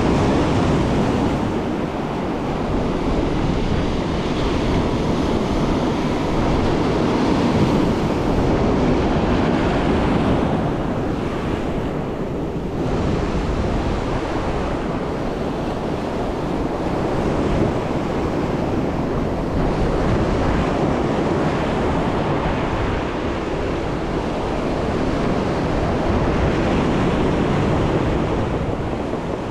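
Rough sea surf breaking and washing over shoreline rocks, its loudness rising and falling with the waves, with wind buffeting the microphone.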